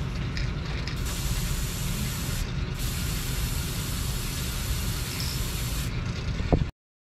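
Airbrush setup running: a steady, rattling rumble from the air compressor under a high hiss of air through the airbrush. The hiss stops briefly about two and a half seconds in, and everything cuts off suddenly near the end.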